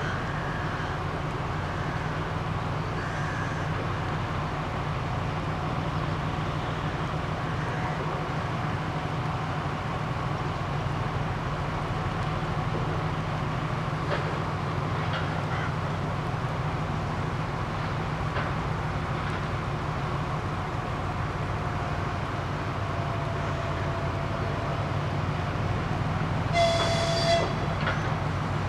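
M62 diesel locomotive's two-stroke V12 engine running with a steady low throb as the locomotive creeps forward. Near the end the locomotive's horn gives a short toot.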